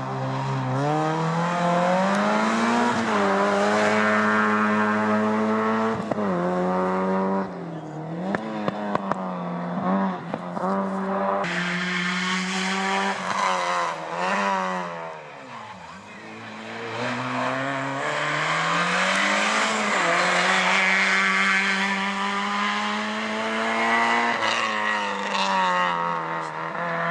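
Rally car engine revving hard through the gears, its pitch climbing and then dropping sharply again and again at shifts and braking. The sound fades off near the middle and builds back up.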